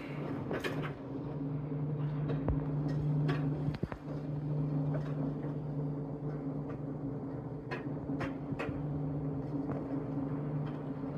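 Skyrail Service suspended car system, a cross between a hanging monorail and a ropeway, running overhead as a car travels along the elevated track. It makes a steady mechanical hum with scattered sharp clicks and ticks.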